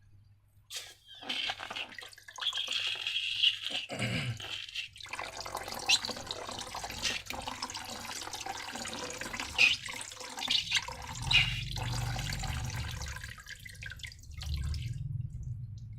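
Wet, sticky slime being squished and worked, with a crackly squelching and a few sharp sticky clicks.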